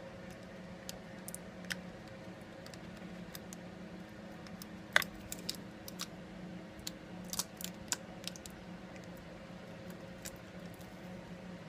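Scattered small clicks and taps of fingers and tools handling smartphone parts during a screen repair, the sharpest about five seconds in, over a steady low hum.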